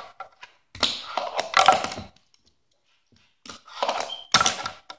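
Small hard objects being handled and set down on a countertop: quick clicks and knocks in two clusters, about a second in and again around three and a half seconds.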